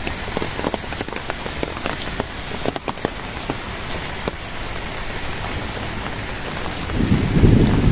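Heavy rain falling steadily, with many sharp drop hits standing out of the downpour. About seven seconds in, a low rumble of thunder begins.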